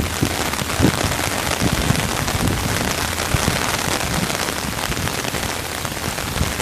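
Heavy rain falling on an umbrella held over the microphone: a steady dense hiss with many small drop hits.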